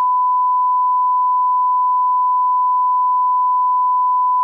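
Broadcast line-up tone: a steady 1 kHz reference tone, one unbroken pitch, played under the slate at the head of a news package.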